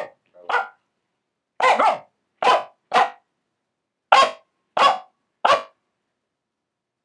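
A Finnish Spitz barking: about seven short, sharp barks, some in quick pairs, spread over the first five and a half seconds.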